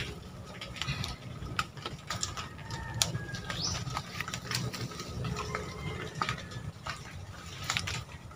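Irregular crackling and snapping of dry leaves and twigs as the monitor lizard is handled and set down in leaf litter, over a low rumble of handling noise. Faint bird calls sound in the background.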